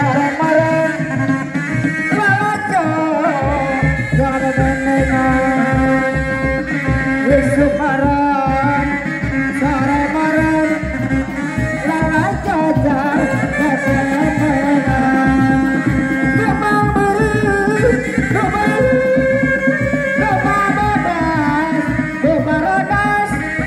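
Sundanese reak music. Dog-dog drums beat a dense, driving rhythm under a wavering high melody line, and the deep drum beats come in strongly about three and a half seconds in.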